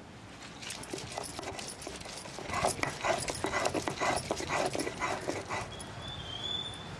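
Stone roller grinding masala paste on a flat stone grinding slab (pata-varvanta), rubbing and knocking against the stone in a quick series of strokes, about three a second at its busiest in the middle.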